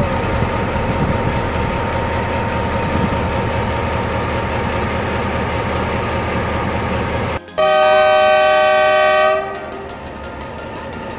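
Diesel locomotive running with a steady rumble, then about seven and a half seconds in it sounds a loud multi-tone horn blast that lasts about two seconds before cutting off.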